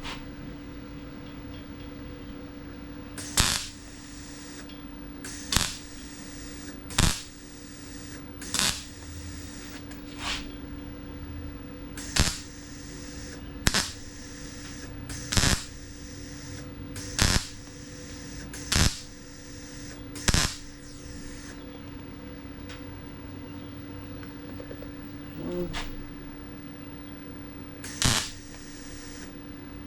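MIG welder laying a run of short tack welds on the steel sheet metal of a Ford XK Falcon fender patch, plugging the Cleko holes: about a dozen brief bursts, mostly a second and a half to two seconds apart, with a few weaker ones, over a steady hum.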